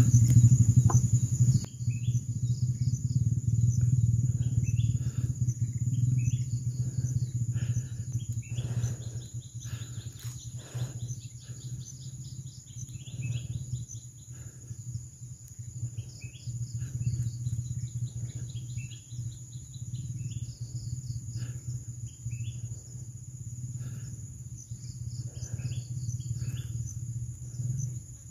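Forest birds giving short, repeated chirps over a steady high insect whine, with a low steady hum underneath and a few brief knocks about ten seconds in.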